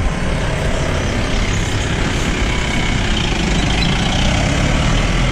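Steady outdoor rumbling noise, low and even, with no separate events or pitched tones.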